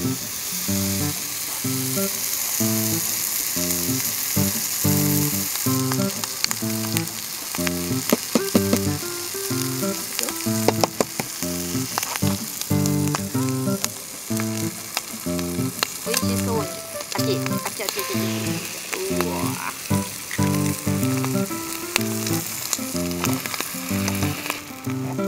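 Bacon sizzling as it fries in a square pan over a portable gas stove, with a few sharp clicks near the middle. Light background music with plucked notes plays underneath.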